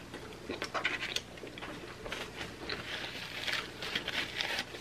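Close-miked chewing and mouth sounds of a person eating pizza: wet smacks and clicks, with a paper napkin wiped across the mouth near the end.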